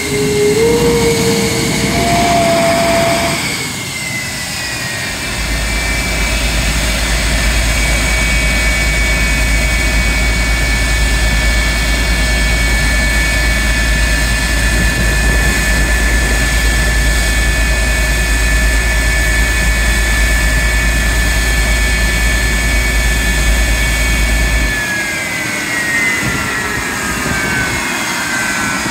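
CF-104D Starfighter's J79 turbojet running on the ground with a steady, loud high-pitched whine. About 25 seconds in, the whine starts to fall in pitch as the engine spools down.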